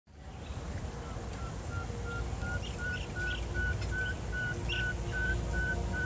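Dusk outdoor ambience: a steady run of short, even calls at about two to three a second, creeping slightly up in pitch, with scattered bird chirps above and a low rumble underneath.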